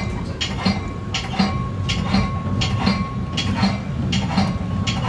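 Steel wheels of a Metra commuter cab car, heard from inside the car, clicking over rail joints and switches at low speed: sharp clicks in pairs, about two or three a second, over a steady low rumble. A faint steady high hum runs underneath.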